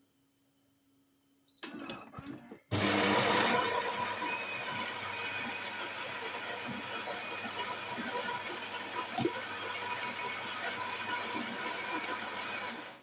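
Philips 5400 series bean-to-cup coffee machine starting a cappuccino: after a few short mechanical noises, its built-in burr grinder runs steadily for about ten seconds, grinding the beans, then stops abruptly.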